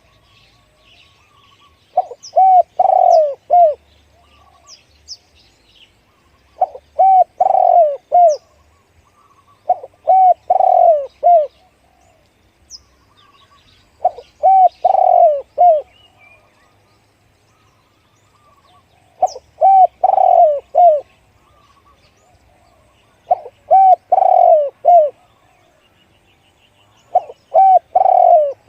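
Spotted dove cooing: a phrase of several low coos, repeated about every four seconds, seven times. Faint high chirps from other small birds come between the phrases.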